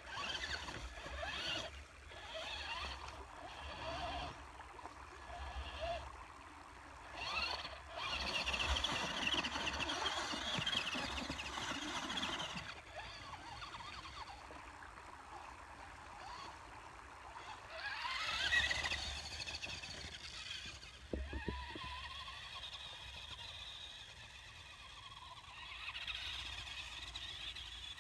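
Traxxas Stampede 4x4 RC truck's electric motor and gearing whining as it is driven through snow, the pitch rising and falling with repeated bursts of throttle. A sharp rising whine comes about two-thirds of the way in.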